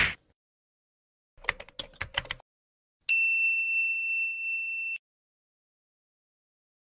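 A few quick clicks, then a single high bell-like ding that starts sharply about three seconds in, holds steady for about two seconds and cuts off abruptly.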